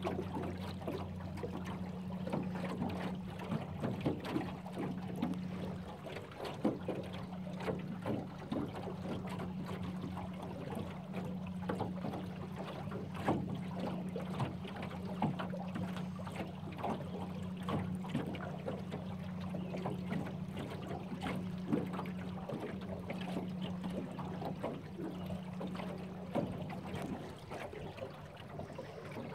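A small boat's outboard motor running at a steady speed, a constant low hum, while small waves slap and knock irregularly against the aluminium hull.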